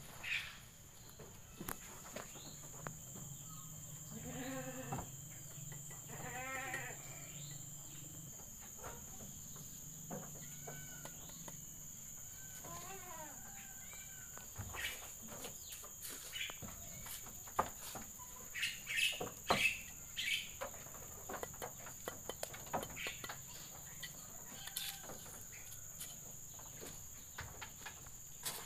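Goats bleating: two wavering bleats a few seconds in, then fainter calls. Scattered sharp taps and clicks come in the second half.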